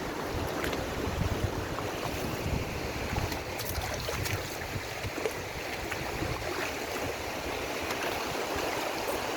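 River water rushing steadily, with uneven low rumbles of wind on the microphone.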